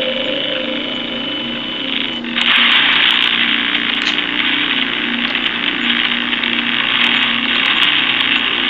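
Spirit box app sweeping through radio static: a loud, steady hiss with choppy tones chopping in and out underneath. It jumps louder a little over two seconds in.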